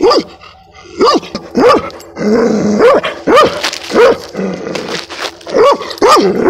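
A dog barking repeatedly, about two loud barks a second, with a short lull near the middle. It is agitated by a grey rat snake.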